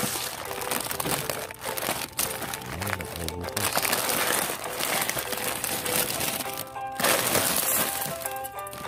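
Plastic food packaging crinkling and rustling as bags of rice and other packaged food are handled in a cardboard box, over steady background music.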